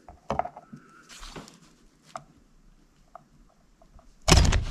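Needle-nose pliers clicking and scraping against the plastic rope pulley of a Ski-Doo snowmobile recoil starter while pulling at the rope's wedge block, with a few light ticks, then a loud clatter near the end.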